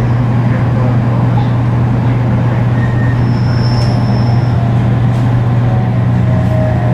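Running noise heard inside the motor car of a JR Kyushu 813 series 200-subseries electric train with Toshiba GTO inverter traction equipment, under way with a steady deep low drone beneath the wheel and track noise. The recordist suspected this deep low drone of being an abnormal noise, though unsure. A short high tone sounds about three to four seconds in.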